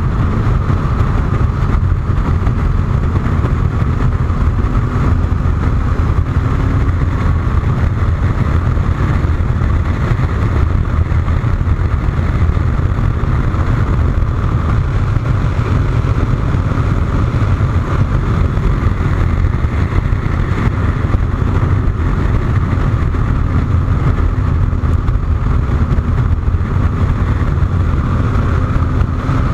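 Wind rushing and rumbling over the microphone of a motorcycle at highway speed, about 145–180 km/h. Under it, the bike's engine runs steadily, its note rising slightly a few seconds in and again near the end.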